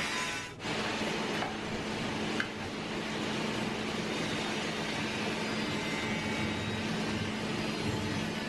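Steady mechanical hum of a machine running in a workshop, with one light tap about two and a half seconds in as the sheet-steel repair panel is set against the wing.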